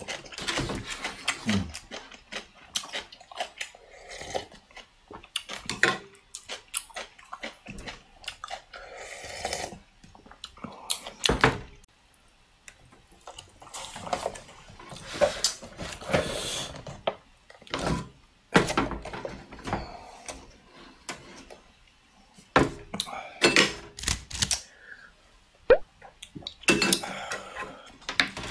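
Scattered clicks, taps and rustles of eating at a table: chopsticks tapping against paper ramen cups and a kimchi plate, cups picked up and set down on a metal tray, and a cup-noodle lid peeled back.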